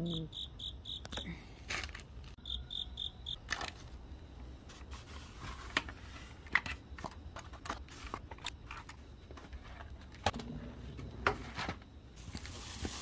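An insect chirping in a short, rapid, high-pitched pulsed trill, at the very start and again about two and a half seconds in, over scattered soft clicks and crackles.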